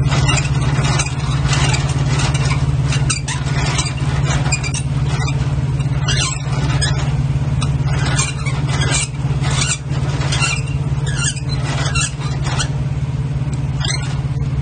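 Semi-trailer landing gear being hand-cranked, giving irregular short squeaks and scrapes, over the steady low hum of an idling truck engine.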